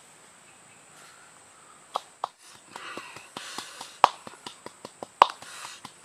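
Wooden pestle knocking and grinding in a coconut-shell bowl, crushing red chili peppers with salt. The sharp knocks begin about two seconds in and come irregularly and more often toward the end, with two much louder strikes near four and five seconds in.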